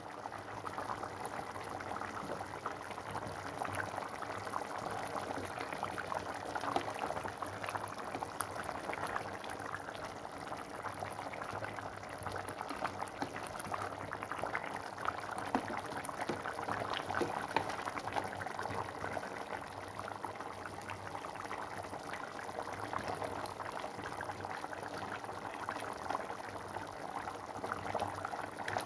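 Pot of tofu in a spiced broth at a steady rolling boil: a continuous dense crackle of small bubbles popping.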